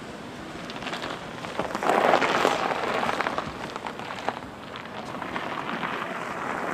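A car driving slowly with its tyres crunching and popping over loose gravel, loudest about two seconds in and rising again near the end.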